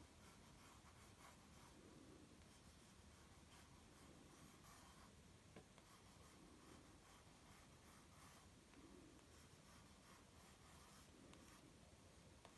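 Graphite pencil scratching faintly across sketchbook paper, drawing wavy lines in runs of short strokes with brief pauses between them.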